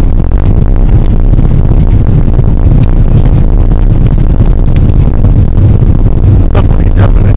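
Car engine running, heard from inside a stripped, roll-caged cabin: a loud, heavy low rumble that overloads the microphone, with a few sharp knocks near the end.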